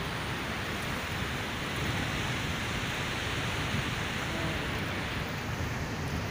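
Steady rushing noise of wind buffeting the microphone while riding on the roof of a moving vehicle, with the rush of the river mixed in.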